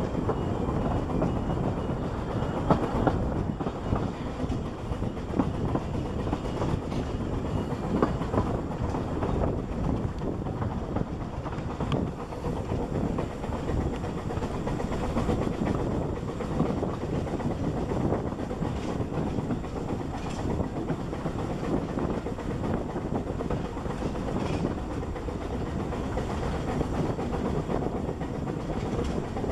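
A 2 ft 3 in narrow-gauge steam train heard from an open carriage window: the carriage rumbles steadily along the track, with irregular clicks as the wheels run over rail joints.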